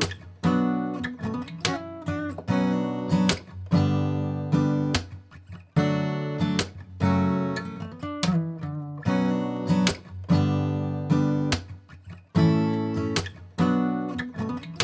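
Background music: acoustic guitar strumming chords in a steady rhythm, each chord ringing and fading before the next strum.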